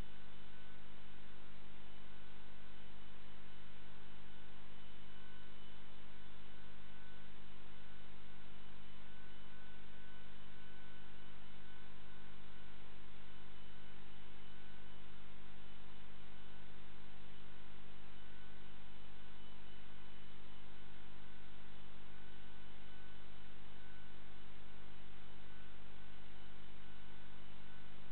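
Steady electrical mains hum over a constant hiss.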